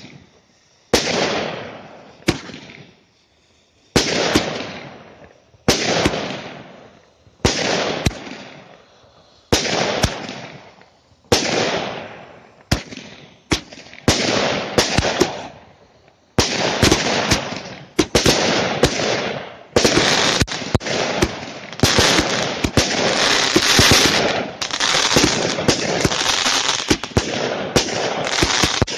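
Category F2 consumer fireworks going off: sharp bangs about every one and a half to two seconds, each followed by a fading hiss. Past the middle, the shots come thick and fast and run together into an almost continuous barrage.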